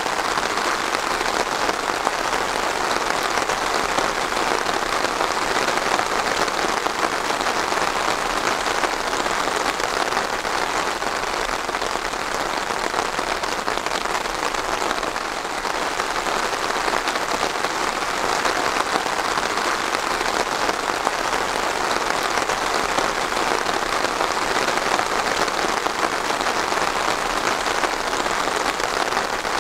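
Steady rain falling on a surface, a dense even patter of raindrops.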